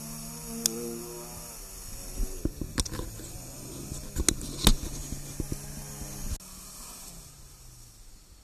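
Land Rover Defender's engine running at low revs as it crawls over rough, stony ground, with a series of sharp knocks and clacks as the wheels and body go over the rocks close by, loudest a little before the midpoint. The sound drops away suddenly after about six seconds.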